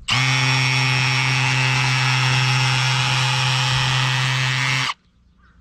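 Cordless drill-driver with a 13 mm socket screwing a spiral tent peg into crushed-stone gravel, the motor running at one steady pitch for about five seconds and then stopping abruptly. The peg screws in easily.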